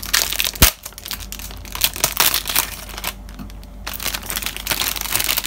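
Clear plastic wrapping film crinkling as it is pulled and torn off a pack of sauce bottles, with a sharp click about half a second in and a short lull around three seconds in.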